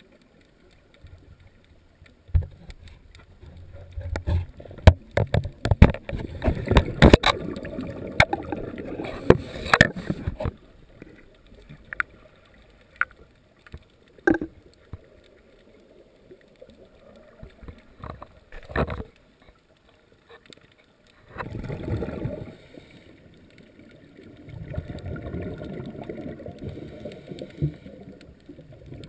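Scuba diver's exhaled breath bubbling out of the regulator underwater, in long crackling bursts several seconds apart, with scattered clicks in the quieter gaps between breaths.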